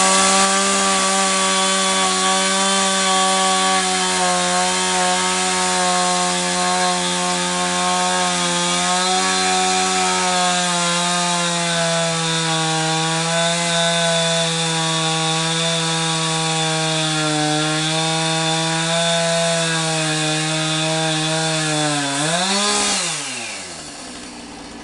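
Husqvarna 56cc two-stroke chainsaw running at high revs with a steady note that sags a little now and then, as when cutting through a log. About 23 seconds in it blips briefly, then winds down and stops.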